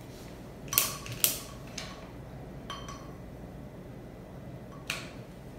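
A long-nosed utility lighter clicked to light candles in glass holders: about five sharp clicks spread out, the two loudest close together about a second in and another near the end.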